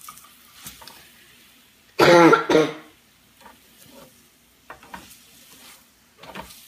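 Chickpea-flour pancake sizzling faintly in olive oil in a small nonstick frying pan as it is flipped and pressed with a spatula, with light scrapes and taps against the pan. About two seconds in, a person gives a loud, short cough in two parts.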